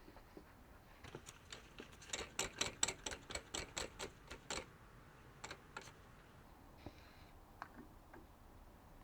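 A quick run of sharp metallic clicks and taps, about four or five a second for a couple of seconds, then a few scattered ones: tools and parts being handled at a metal lathe while it stands still.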